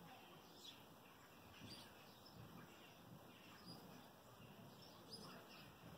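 Faint bird chirps, a few short calls scattered through, over a quiet outdoor background hiss.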